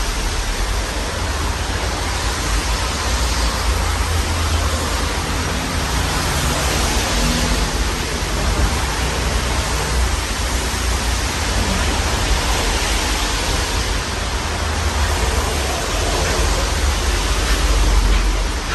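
Modern Fan Company Cirrus ceiling fan running, its blades moving air in a steady rushing noise with a fluctuating low rumble of the draught buffeting the microphone.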